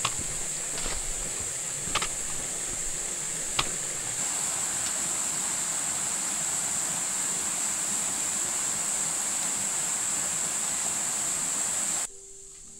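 Forest ambience dominated by a steady, high-pitched insect chorus over a soft hiss, with a few sharp clicks in the first few seconds. It cuts off abruptly near the end.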